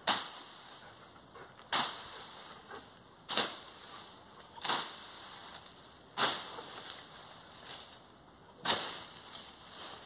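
Long-handled tool chopping down into grass and brush: sharp swishing strikes roughly every second and a half, six strong ones and a lighter one between the last two.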